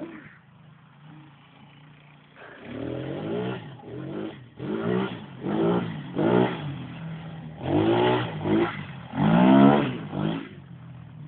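ATV engine running at a low idle, then revved in a series of about ten short throttle bursts starting about two and a half seconds in. In each burst the pitch climbs and falls back.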